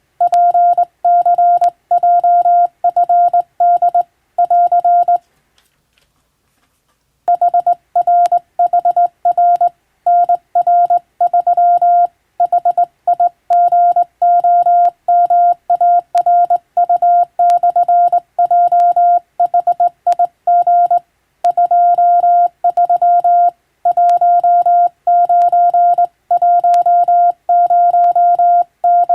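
Morse code (CW) sent as a single steady beep tone, keyed on and off in short dots and longer dashes at a brisk pace. The sending stops for about two seconds around five seconds in, then carries on.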